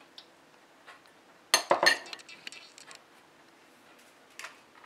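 Kitchenware clinking: a small glass bowl set down on the worktop beside a steel mixing bowl. A cluster of sharp clinks comes about a second and a half in, followed by a few lighter taps.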